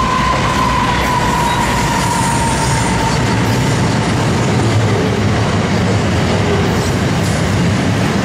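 Freight train passing: Pacific National NR class diesel-electric locomotives followed by loaded steel wagons, a loud steady rumble. A high whine rides over it, slowly falling in pitch and fading about three seconds in.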